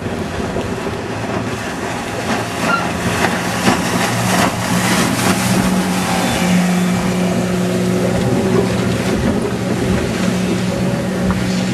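Outboard motor boats running at planing speed over choppy water: a rush of water and splashing spray, heaviest in the first half, with a steady engine drone that grows stronger about halfway through.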